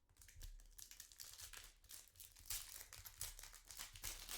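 Foil trading-card pack wrapper crinkling and tearing open, a fast run of faint crackles with a louder crinkle about two and a half seconds in.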